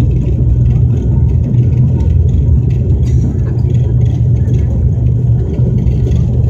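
IndiGo ATR 72-600's Pratt & Whitney PW127 turboprop engines and propellers at takeoff power, heard inside the cabin during the takeoff roll: a loud, steady low propeller drone over a noisy roar.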